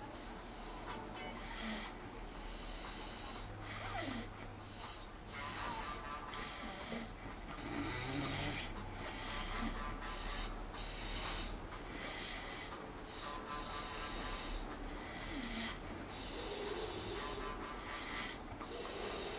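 A man snoring in deep sleep, one breath every two to three seconds.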